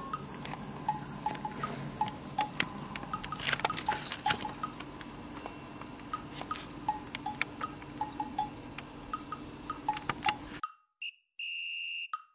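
Insects chirring steadily in a high-pitched chorus, with faint light percussive background music tapping along. The insect sound cuts off suddenly near the end, leaving a few bright music notes.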